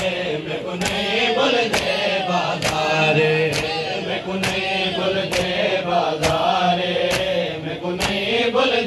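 A group of men chanting a noha together, their voices kept in time by matam: hands slapping chests in unison about once a second.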